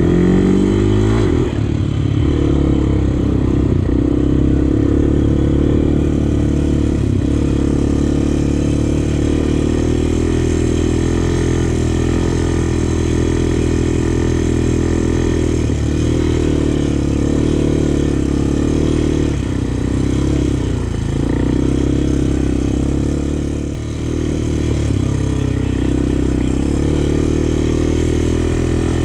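Honda 400X ATV's single-cylinder four-stroke engine running steadily on the trail, its revs dipping briefly a few times as the throttle is eased.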